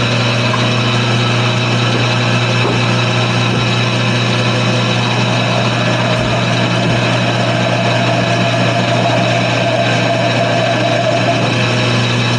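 Wood lathe running steadily with a hum while a texturing tool is held to the spinning wooden top, putting fine lines in it. A higher tone joins about halfway through and drops out near the end.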